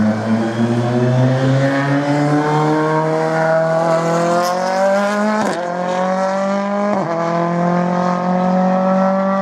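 Ford Fiesta R5 rally car's turbocharged four-cylinder engine accelerating hard, its pitch climbing steadily. It makes two quick upshifts, about halfway through and a second and a half later; the pitch drops at each and then climbs again.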